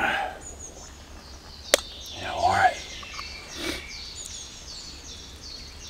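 A small metal coffee pot is handled and coffee is poured into a mug, with a sharp click about two seconds in. A bird sings a quick, evenly repeated high chirp in the background.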